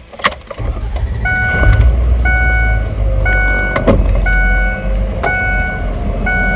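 Crane truck's engine rumbling as it begins to reverse, its back-up alarm beeping steadily about once a second, with a couple of sharp knocks.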